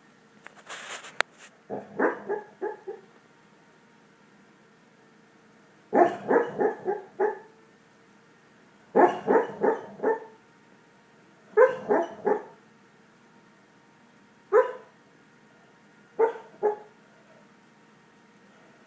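Dog snoring in its sleep: six bursts of short, quick, muffled woof-like huffs, a burst every two to four seconds, the last two shorter.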